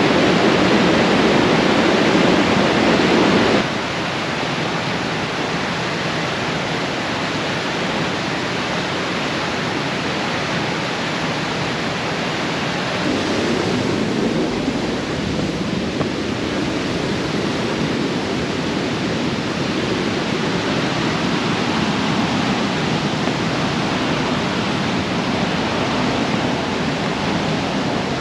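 River rapids rushing over rock ledges: a steady roar of white water. It drops suddenly in level a few seconds in and grows a little louder again about halfway through.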